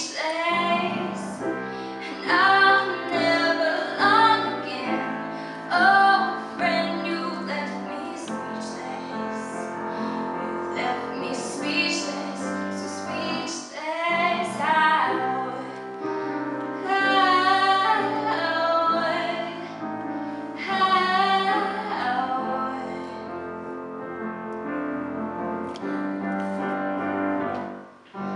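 Teenage girl singing solo into a microphone, with grand piano accompaniment; she holds several long notes with vibrato. Voice and piano pause briefly near the end.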